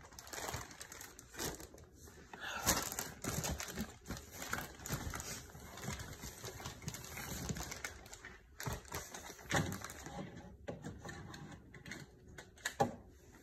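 Irregular clicks, clatters and rustling of game controllers and other electronics being handled and put into a container, with a few louder knocks.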